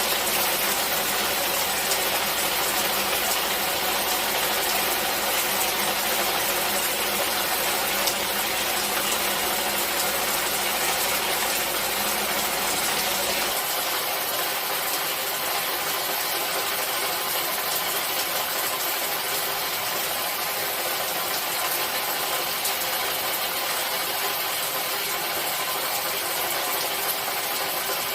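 Steady rain falling, an even hiss with no single drops standing out. About halfway through, the faint low rumble underneath drops away.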